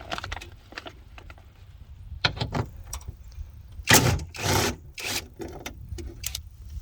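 Metal tools and parts clicking, knocking and rattling against a truck door's inner panel as a regulator bolt is worked loose, with a loud rattling clatter about four seconds in.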